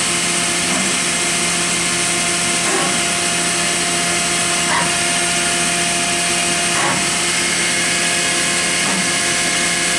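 Mazak VCN 410A-II CNC vertical machining center running a test program: a steady machine whine and hiss, with a brief rising chirp about every two seconds as the machine moves.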